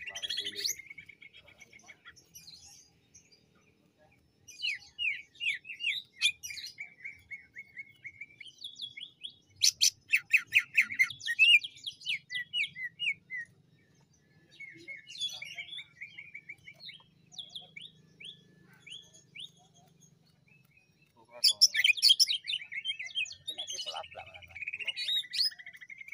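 Greater green leafbird (cucak ijo) singing. Phrases of varied chirps, slurred whistles and fast rattling trills come with short pauses between them, and the loudest rapid bursts fall about ten seconds in and again near the end.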